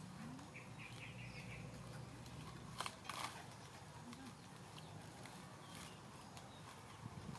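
Quiet outdoor ambience with a low steady hum, a brief faint bird chirp about a second in, and two sharp clicks about three seconds in.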